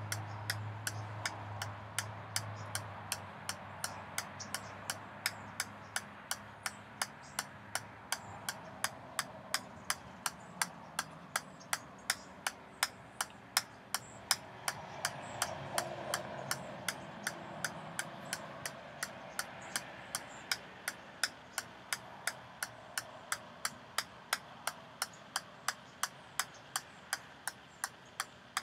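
Ping-pong ball bouncing again and again on the steel head of a 6-pound sledgehammer held out one-handed: a steady, even ticking about two to three times a second.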